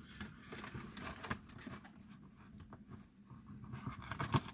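Soft scattered crackles, rustles and clicks of fried chicken being eaten and handled, with a sharper click near the end.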